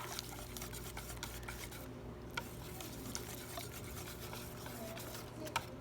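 A utensil stirring ube halaya into a bowl of thick rice-flour and coconut-milk batter, with soft scraping and many light clicks against the bowl.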